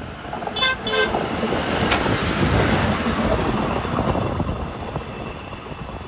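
Two short horn toots from a hi-rail truck on the rails, followed by the noise of the truck passing close over the level crossing, which builds and then fades as it moves away.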